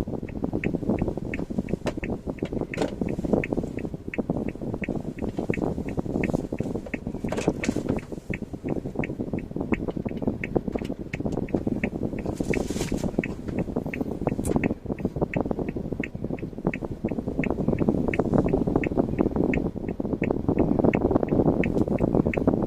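Car driving on the road, with a steady rumble of road and running noise and a regular fast ticking of about three clicks a second throughout.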